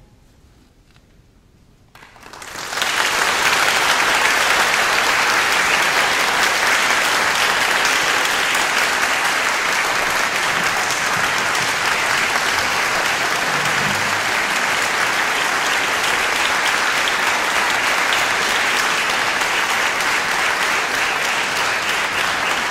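Audience applause: after a brief hush it breaks out about two and a half seconds in, then continues steadily.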